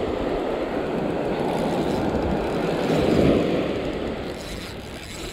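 Surf breaking and washing up the beach: a rushing noise that swells about three seconds in, then fades.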